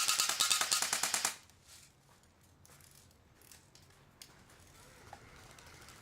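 Airsoft rifle firing a long burst on full auto, a fast rattle of shots that stops about a second in.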